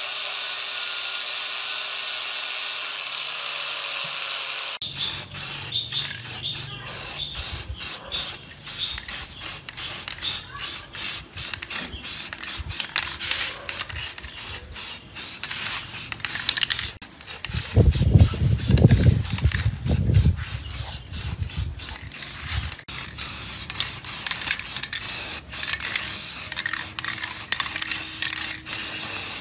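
An angle grinder with an abrasive disc runs steadily against a metal housing for the first few seconds, then cuts off. After that an aerosol spray-paint can hisses in many short bursts, with a louder low rumble for a couple of seconds around the middle.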